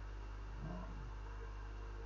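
Steady low electrical hum and hiss from the recording setup, with one brief faint sound about half a second in.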